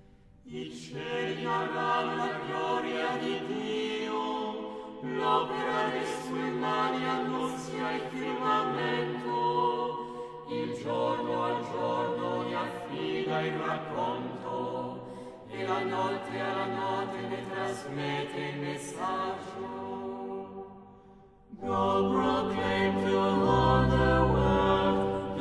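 Choir singing in phrases about five seconds long, with short breaks between them. About twenty-one seconds in the sound drops away, and a fuller passage with a deep bass begins.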